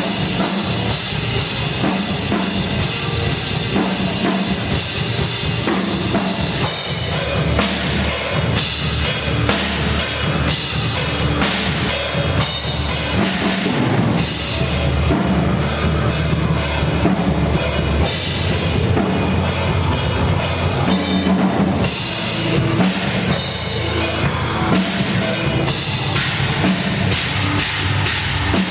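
Loud rock music led by a drum kit: rapid drum hits with bass drum and cymbals over a steady bass line.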